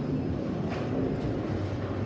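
Low, steady rumble of bowling balls rolling down the wooden lanes of a bowling alley, with a faint click about three-quarters of a second in.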